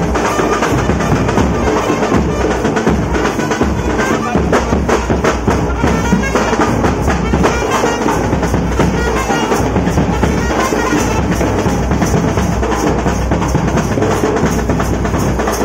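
A group of large double-headed drums played live in a fast, continuous beat for dancing, with dense rolls of strokes and no let-up.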